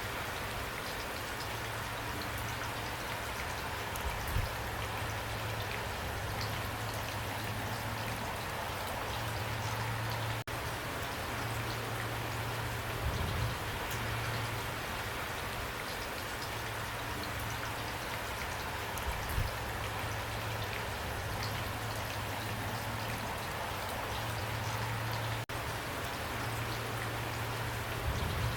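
Heavy rain pouring steadily, with drops ticking sharply on a surface over the even hiss. A low rumble comes and goes underneath.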